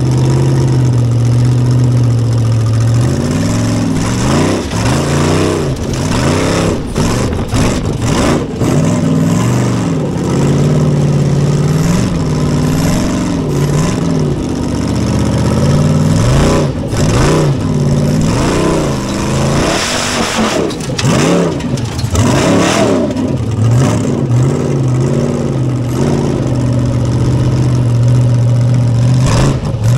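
Formula Offroad buggy's engine heard from inside the cockpit, running at a steady note at first, then revved up and down again and again as the car works over rough dirt, with knocks and rattles from the chassis. It settles back to a steady note near the end.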